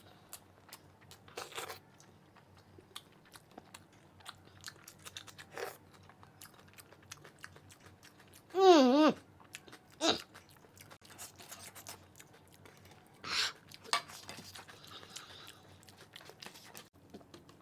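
Close-miked chewing and crunching while eating spicy mutton leg pieces: scattered wet mouth clicks and smacks, with one short voiced sound from the eater about halfway through.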